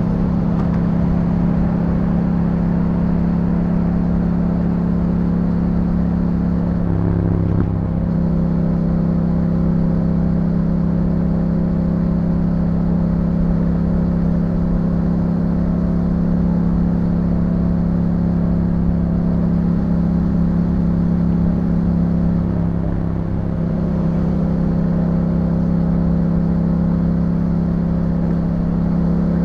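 Yamaha MT-07 parallel-twin engine through an Akrapovic exhaust, running at a steady cruising pace under way. The note changes briefly about seven seconds in and again around twenty-three seconds in, where it dips slightly.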